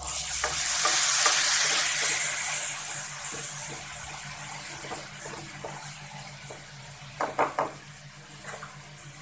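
Water poured into hot oil and spice masala in a kadhai: a loud sizzle starts suddenly and fades over several seconds as the masala bubbles. A spatula clicks against the pan a few times near the end.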